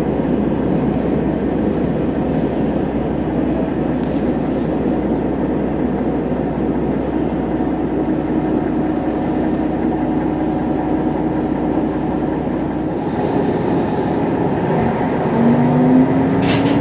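Sanriku Railway diesel railcar running, heard from inside the car: a steady rumble of engine and wheels on the rails. About thirteen seconds in the deepest part of the rumble drops away, and near the end a short rising tone sounds.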